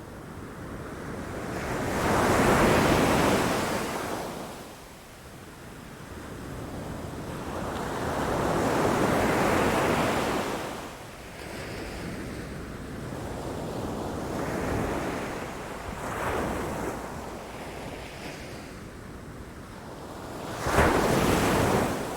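Ocean waves breaking against rocks and shore, swelling and washing back in surges every several seconds, with a sharper, louder crash near the end.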